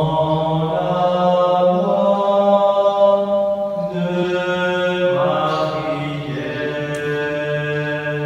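Voices singing a slow communion hymn in chant style, long held notes that change pitch every second or few.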